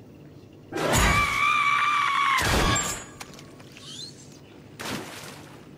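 A woman's scream from a cartoon soundtrack, held at one high pitch for nearly two seconds, then a short burst of noise as it breaks off.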